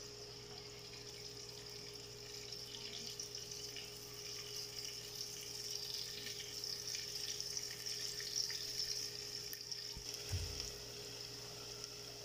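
Chopped onions sizzling in hot oil in a pot on a gas stove, a steady soft crackling hiss that swells a little through the middle, while they are gently sautéed toward pink. A dull knock about ten seconds in.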